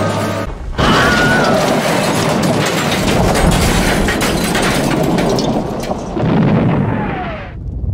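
A loud explosion goes off just under a second in, followed by several seconds of rumbling and crackling. It swells again about six seconds in, then dies away shortly before the end.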